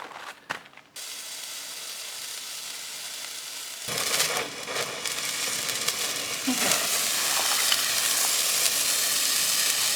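Frying sizzle, as of food hitting hot oil in a pan: a steady hiss starts suddenly about a second in, then grows louder and fuller about four seconds in, with scattered crackles.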